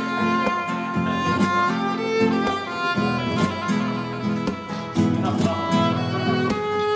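Background music: fiddle melody over strummed guitar chords with a steady rhythm.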